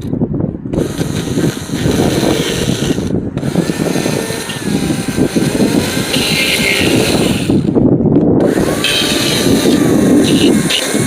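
Chainsaw running and cutting into wood, its engine pitch wavering as it carves.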